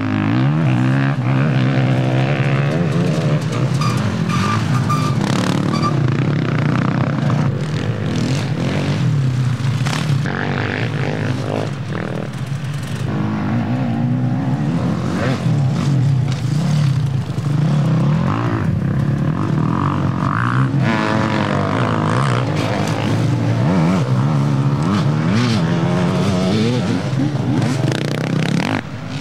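Engines of off-road racing vehicles running hard, revving up and easing off over and over, with several engines overlapping at times.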